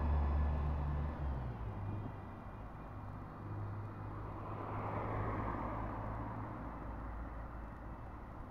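Street traffic: a nearby vehicle's low engine rumble fades out about a second in, leaving a quieter steady hum of traffic, with another vehicle passing by about five seconds in.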